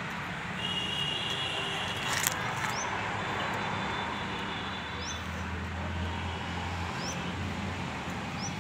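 Outdoor background noise: a steady hiss with short, high, rising chirps every second or two. A sharp click comes a little over two seconds in, and a low hum runs for about two seconds past the middle.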